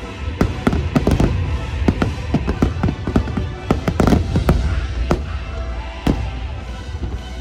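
Aerial fireworks bursting in quick succession over the show's music: a dense run of sharp bangs and crackles through the middle few seconds, then a few more spaced-out bangs near the end.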